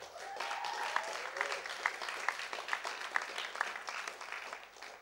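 Audience applauding, with one pair of hands clapping louder at about two claps a second; the applause dies away near the end.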